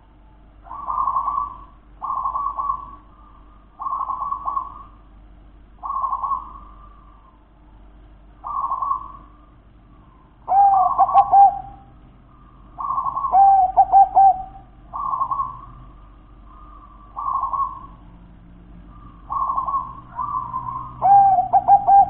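Zebra dove (perkutut) cooing: short cooing phrases about every two seconds, and from about halfway through some louder, longer phrases that end on a held lower note.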